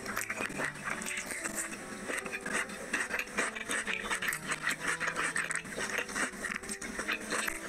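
Close-miked chewing and lip-smacking of a person eating chicken curry and paratha: a fast, uneven run of wet mouth clicks.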